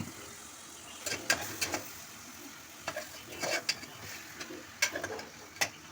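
Mutton and spice masala being stirred in hot oil in a pressure cooker: a utensil scrapes and knocks against the metal pot in three short bouts over a steady sizzle, as the meat browns with turmeric, chilli powder and salt.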